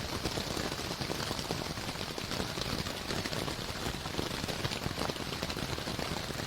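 Steady rain, a dense patter of small drops on a surface, with no music.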